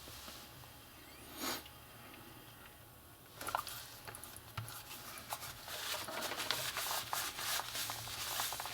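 Handling noise: a brief swish about a second and a half in, then from about three and a half seconds in, steady rubbing with many small clicks as the phone is held and handled.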